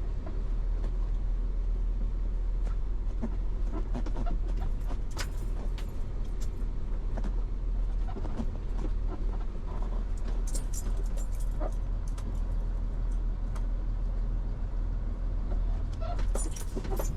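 Tow truck's engine running with a steady low rumble, heard from inside the cab, with scattered clicks and several short bursts of metallic jangling.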